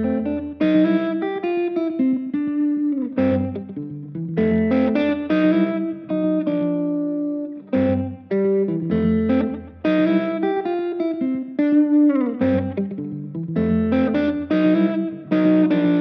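Fender Stratocaster electric guitar playing jazz chord melody: ringing chords and melody notes in phrases of a few seconds, each followed by a brief gap.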